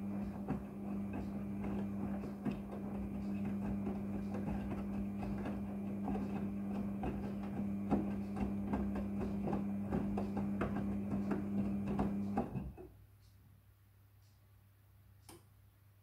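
Front-loading washing machine tumbling jeans in soapy water during the wash: a steady motor hum with sloshing water and soft knocks of the wet load against the drum. The drum stops suddenly about three-quarters of the way through, leaving only a faint low hum and a single click.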